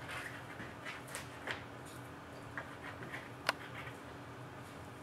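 Small clicks and rustles of packing pieces being pulled off a 1/12-scale RC truck model by hand, with one sharper click about three and a half seconds in.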